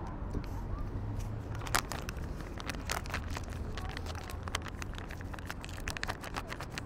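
Foil cat-food packet crinkling and crackling as a hand handles it over the food bowl, a dense run of sharp crackles starting about a second and a half in.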